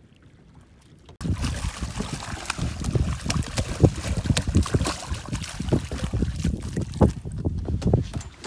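A hooked fish thrashing and splashing at the water's surface beside a boat's hull as it is netted, with many irregular splashes and knocks and wind buffeting the microphone. It starts abruptly about a second in.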